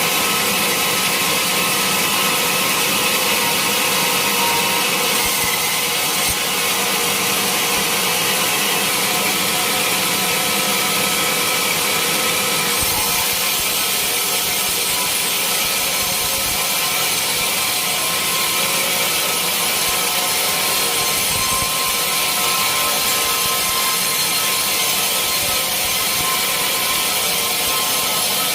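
Sawmill saw cutting through a large teak log: a loud, steady hiss with a constant whine.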